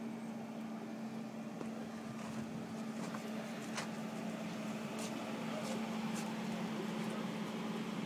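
BMW 7 Series sedan's engine idling steadily as a low, even hum, with a few light clicks in the middle.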